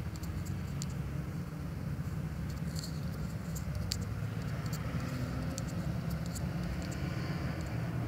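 Light, irregular clicks of typing on a phone's touchscreen keyboard, over a steady low rumble.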